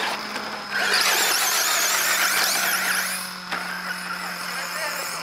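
A radio-controlled car's motor whining at high pitch, the whine wavering up and down with the throttle. It is loudest from about one second to three and a half seconds in, and ends with a sharp knock.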